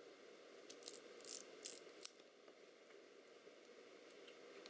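Lomo LC-A's one-way film-advance and frame-counting mechanism worked by hand: about six quick, faint ratchet clicks of small metal parts in the first two seconds, then quiet.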